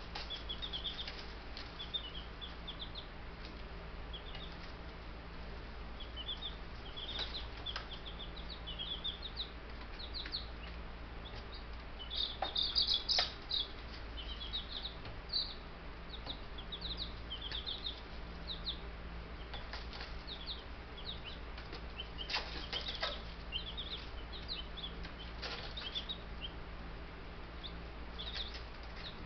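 A brood of baby Buff Brahma chicks peeping continuously in many short, high chirps. A few brief rustles of flapping or scratching come in among the peeps.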